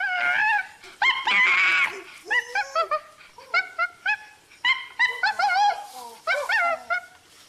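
Bonobos calling: a rapid run of short, high-pitched yelps and squeaks, with one longer, louder screech about a second in.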